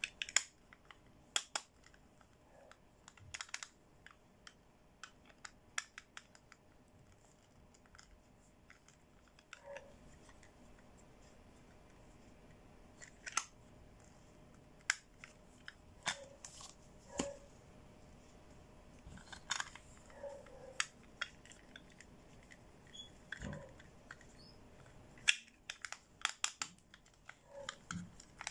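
Hard plastic toy eyeshadow compact handled by hand: irregular sharp clicks and taps of plastic on plastic, coming in clusters with short pauses between.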